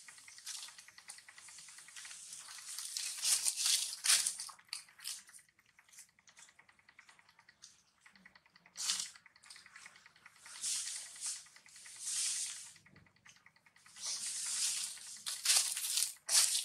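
Baby monkeys handling food, with irregular bursts of rustling and crinkling, loudest about three to four seconds in and again near the end.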